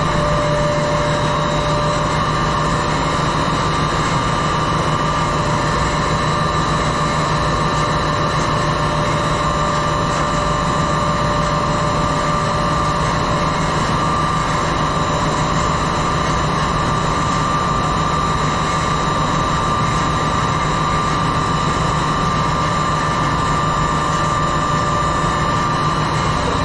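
Steady, loud ship engine-room machinery din: a constant roar with several fixed hums and whines layered over it. One mid-pitched hum drops out about two seconds in.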